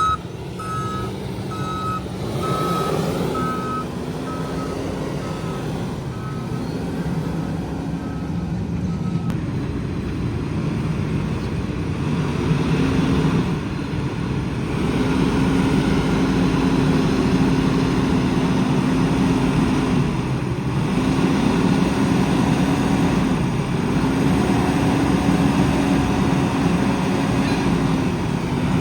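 Diesel engine of a JCB loader working under load, revving up and easing off in repeated surges of a few seconds each. A reversing alarm beeps steadily until it stops about nine seconds in.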